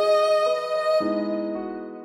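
Instrumental background music of sustained chords; the chord changes about a second in and the music fades near the end.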